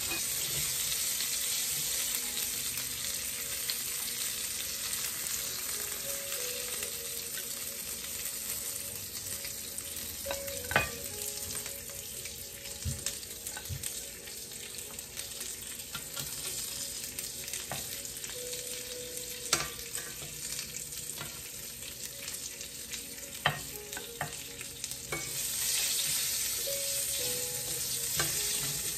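Lamb chops sizzling in a ridged grill pan, a steady frying hiss, with a few sharp clacks of metal tongs as the chops are turned and lifted out. The sizzle swells louder near the end.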